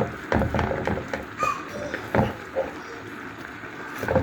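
Irregular knocks and clatter of kitchen utensils and cookware, a few sharp hits spaced unevenly.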